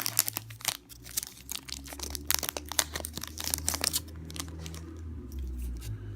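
Foil booster pack wrapper being torn open and crinkled by hand, many short crackles that thin out after about four seconds.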